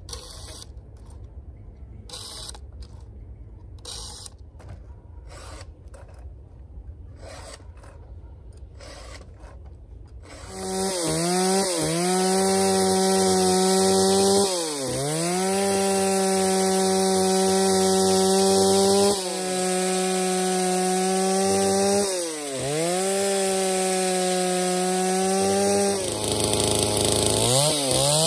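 Quiet, irregular scraping strokes for about ten seconds. Then a Stihl MS 381 two-stroke chainsaw comes in loud at high revs, its revs dipping and recovering several times.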